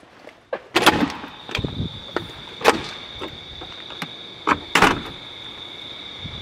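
A metal push bar on a door pressed with a loud clunk as the latch releases, followed by further knocks and a second loud thud as the door swings and bangs shut near the end. A steady high-pitched tone sets in with the first clunk and keeps sounding.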